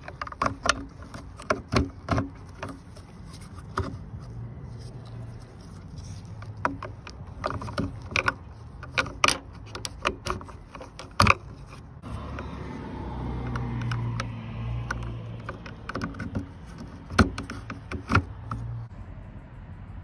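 Sharp plastic clicks and knocks of a Dodge Durango's third brake light housing and its twist-in bulb sockets being handled, over a steady low hum that swells for a few seconds in the middle.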